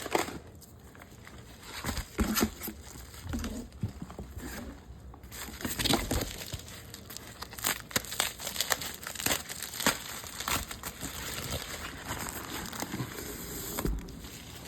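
Plastic packaging crinkling and rustling as parts bags are handled and opened, with irregular crackles. It is sparse over the first few seconds and becomes busier about five seconds in.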